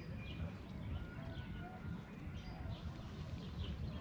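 Outdoor evening ambience of many small birds chirping and calling, short notes coming and going throughout, over a steady low rumble.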